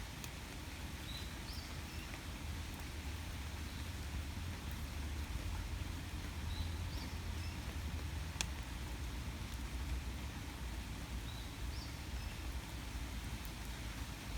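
Steady rain ambience with a low rumble underneath, a small bird giving a short rising chirp three times about five seconds apart, and one sharp click about eight seconds in.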